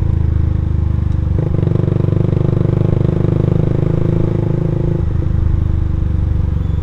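Suzuki Satria F150 single-cylinder fuel-injected engine breathing through an aftermarket R9 racing exhaust, heard from the saddle while cruising steadily at low speed. The exhaust note shifts about a second and a half in and wavers again near five seconds.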